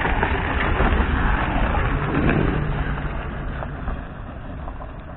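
Steady low rumbling noise on the microphone, swelling in the first couple of seconds and fading toward the end.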